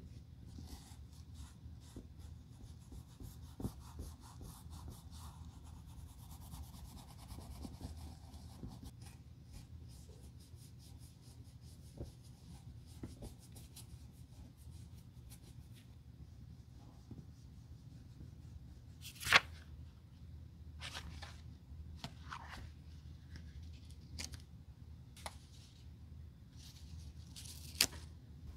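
A thin metal blade scraping and shaving fibrous residue off a bare shoe heel in many quick, light strokes. After about the midpoint it gives a few sharper, louder scrapes, the loudest about two-thirds of the way in and another near the end.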